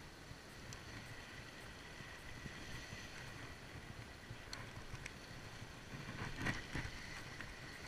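Wind and sea washing around the rocks, heard on an action camera's microphone. There are a few faint clicks, then a louder knock or two about six and a half seconds in as the camera is handled.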